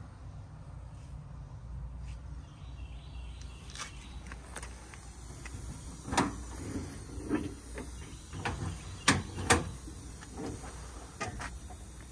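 Paddle latches on an Alter Industries service-body compartment being released and its double doors swung open: a run of clicks and clanks from about halfway in, the loudest two knocks close together about three-quarters of the way through.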